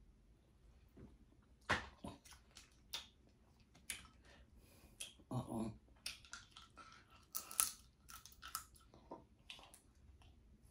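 Close-miked eating sounds: chewing and smacking with sharp, irregular crackles and crunches, loudest about two seconds in and again near seven and a half seconds.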